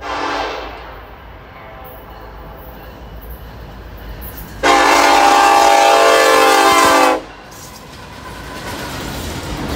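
Norfolk Southern diesel freight locomotive's air horn sounding a chord, a short blast and then a long blast about four seconds later. The rumble of the passing train builds near the end.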